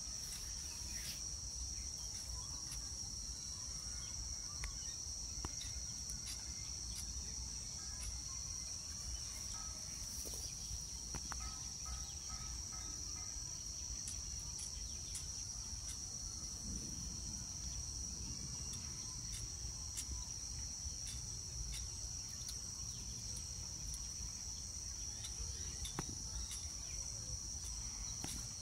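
Steady, unbroken high-pitched drone of insects, with a low rumble underneath.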